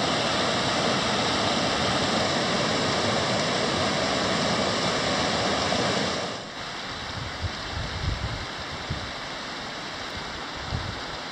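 Mountain stream rushing over a small rocky rapid as a steady, even rush. About six seconds in it turns noticeably quieter, and a few soft low thumps follow.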